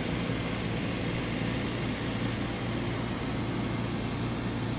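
John Deere combine harvester's engine running steadily under load while cutting a crop, a constant low drone with no change in pitch.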